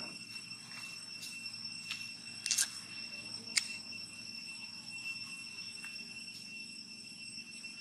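Steady, high-pitched drone of insects with a constant shrill tone, over a faint low hum. A short crackle comes about two and a half seconds in and a single sharp click about a second later.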